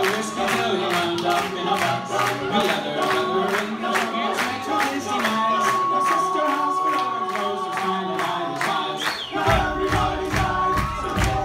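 Music: a male vocal group singing in harmony over a steady beat, with a deep bass coming in about nine and a half seconds in.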